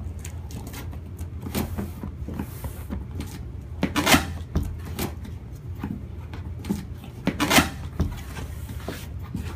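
A cardboard shipping box being opened and its contents handled: scattered knocks, rustles and scrapes, with two louder, longer scraping or tearing sounds about four and seven and a half seconds in, over a low steady hum.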